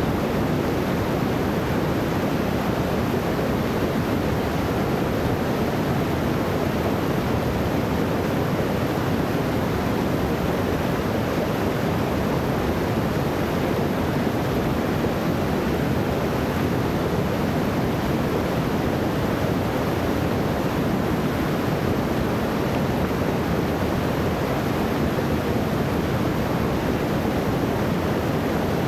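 Creek water cascading over rock steps into a pool, a steady, unbroken rush of white water.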